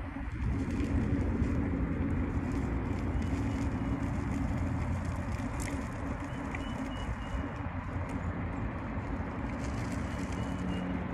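Steady wind rush and low rumble from riding along a paved road, with the wind hitting the microphone, and faint brief high tones in the middle and near the end.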